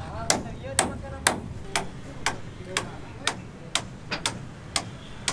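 Steady hammering, sharp strikes at an even pace of about two a second.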